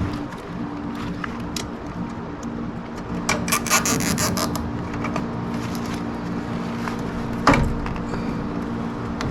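Handling clatter during furnace repair work over a steady low hum: a burst of rattling clicks about three and a half seconds in, and a single sharp knock near the end.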